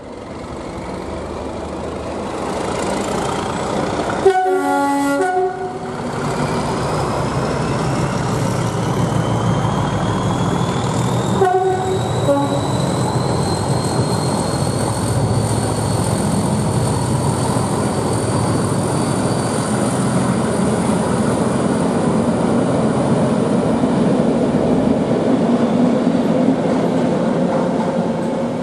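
Class 37 diesel locomotive passing close, its engine running hard with a high whine that climbs in pitch. It sounds a long two-note horn blast about four seconds in and a short horn about seven seconds later.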